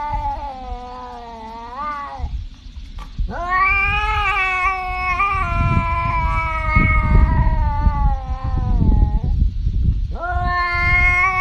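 Tabby cat giving long, drawn-out yowling meows. One call ends about two seconds in with a rise in pitch, then a much longer one of about six seconds follows, and a third starts near the end. A low rumble runs underneath.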